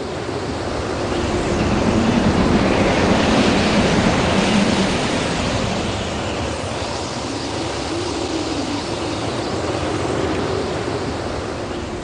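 Wind sound effect: a steady noise that swells over the first few seconds and then eases off slightly.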